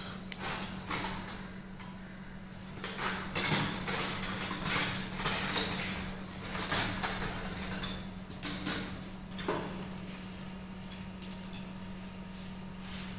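Surgical handling noise: irregular rustles, scrapes and light metallic clicks from drapes, gloved hands and steel instruments as the limb is worked on, busiest in the middle, over a steady low hum.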